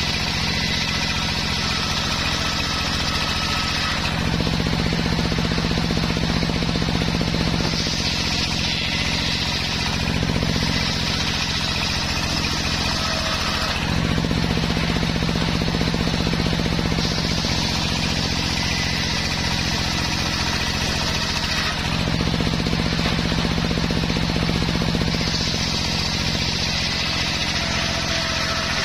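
A home-built circular saw bench ripping waru (sea hibiscus) wood into battens. The saw runs with a steady low hum, and a high hissing sound comes in each time the blade is in the cut. There are about four passes of a few seconds each, with the lower hum taking over between them.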